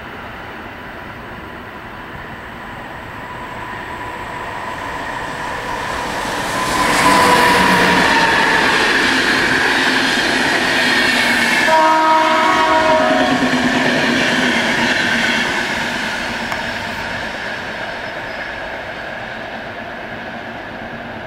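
Electric passenger train passing: a rush of wheels on rail that swells and then fades, with a steady whine that drops in pitch as it goes by. A short horn blast sounds a little past the middle.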